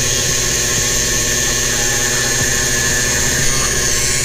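Small handheld rotary tool running at high speed with a steady high-pitched whine, drilling a hole through a 3D-printed plastic cap.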